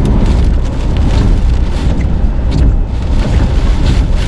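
Hurricane-force eyewall wind buffeting the microphone in a loud, deep, continuous rumble, with driving rain hissing through gusts.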